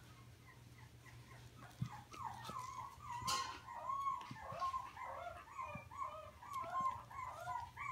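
Chihuahua puppy whimpering: a run of short, high whines, two or three a second, starting about two seconds in and going on without a break.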